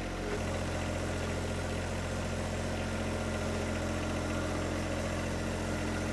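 John Deere 1025R compact tractor's three-cylinder diesel engine running steadily while pulling a box blade through soil.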